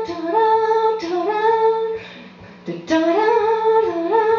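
A woman singing a cappella without words into a microphone: held notes that step up and down in a repeating phrase, heard twice, over a steady low hum.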